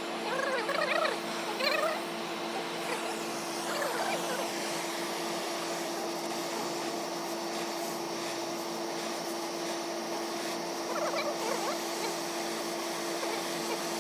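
A machine running with a steady electric hum and a constant tone, with faint chirping or distant voices briefly near the start and again later.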